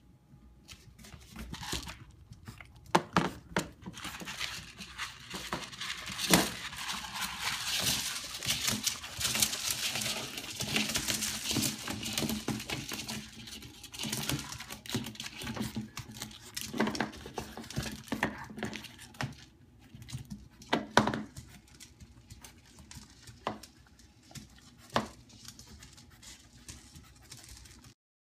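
A 7-week-old English Bulldog/Pit bull mix puppy eating dry kibble from a plastic bowl on a tile floor: a dense run of crunching and small clicks, with several louder knocks of the bowl and scattered kibble.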